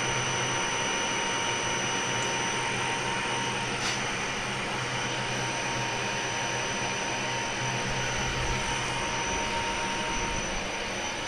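Steady hissing running noise of a CNC milling machine, with a faint steady whine that stops shortly before the end.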